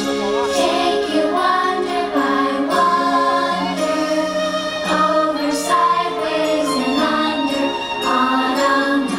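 Fireworks show soundtrack: music with a choir singing long held notes.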